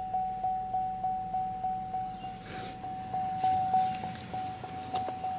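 Car's electronic warning chime dinging steadily about three times a second, with a faint engine idle beneath it and some rustling and a few knocks midway.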